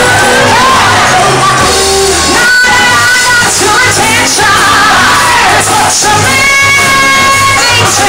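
Live stage performance of a Broadway musical number: a woman's lead vocal belting held notes, with backing singers and a band over a steady bass beat.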